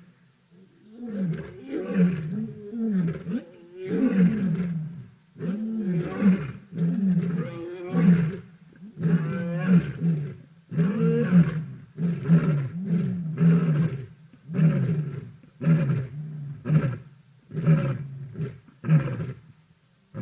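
Lion roaring: a bout of long, deep roars that give way in the second half to a run of shorter grunting roars, about one a second.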